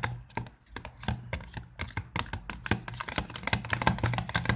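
Slime being stirred and worked in its container, giving irregular sticky clicks and taps several times a second over a steady low hum.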